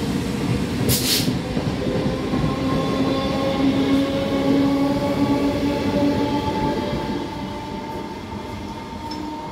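Electric multiple-unit local train pulling out and gathering speed past: wheels rumbling on the rails under a motor whine that slowly rises in pitch, with a short hiss about a second in. The sound fades from about seven seconds as the last coach goes by.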